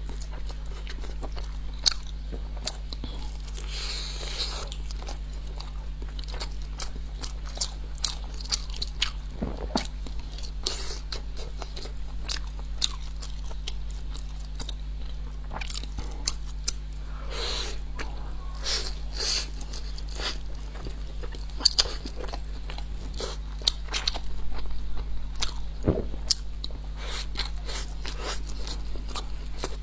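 Close-miked eating of shumai: bites, crunching and wet chewing, with many sharp mouth clicks scattered throughout, over a steady low hum.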